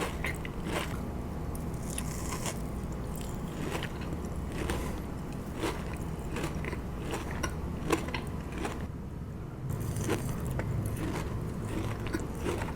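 Close-miked biting and chewing of a Dubai chocolate brownie, with many small crisp crunches and crackles, over a low steady hum.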